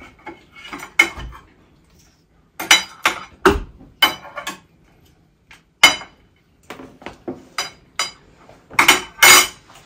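Cutlery and serving utensils clinking and knocking against china plates: an irregular string of sharp clinks, some ringing briefly.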